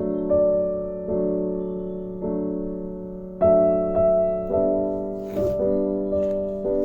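Soft background piano music: chords struck about once a second, each left to ring and fade. A faint rustle comes in about five seconds in.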